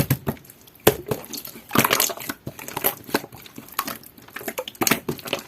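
Clear, jelly-textured slime being squished and pressed by hand, giving irregular sticky pops and crackles, with a sharp pop about a second in and denser crackling around two seconds in.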